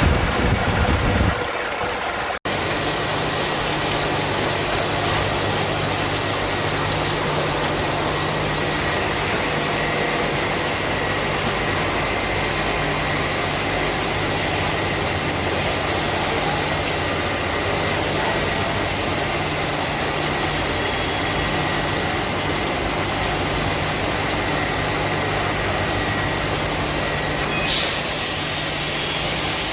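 CNC machine tool running steadily during gear machining: an even mechanical noise with a faint steady high whine and a low hum. A brief bump near the end brings in a second, higher whine.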